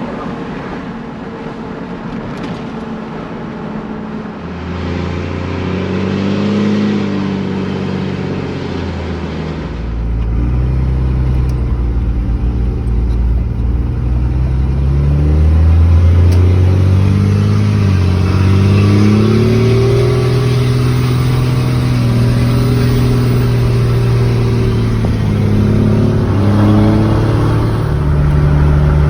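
A 2001 Dodge Ram 2500's 24-valve Cummins turbo-diesel straight-six pulling the truck along the road. The engine note climbs and drops several times as it accelerates and shifts, and grows louder about a third of the way in.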